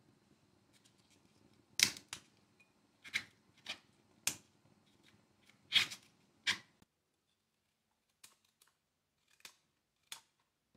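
Crisp snapping of outer leaves being broken off raw Brussels sprouts by hand, about seven sharp snaps. Later come four fainter, sharp clicks of a knife slicing through a raw carrot.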